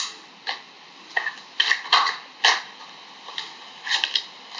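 A deck of oracle cards being shuffled by hand: a string of irregular short snaps and slaps as the cards are cut and tapped together.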